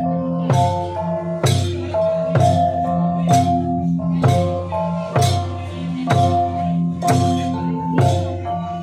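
Bahnar cồng chiêng ensemble of bronze gongs, bossed and flat, struck with padded mallets. The gongs sound an interlocking cycle of overlapping ringing tones over a steady beat, with a sharp stroke about once a second from the barrel drum and gongs.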